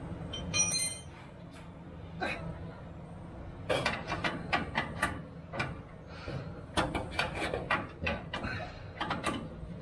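Hand wrench clinking and ticking against the gas tank's mounting nuts and bolts, in irregular clusters of short metal clicks and knocks, with a steady low hum underneath.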